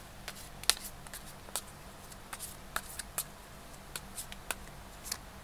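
Tarot cards being shuffled and handled: a string of irregular sharp card snaps and flicks.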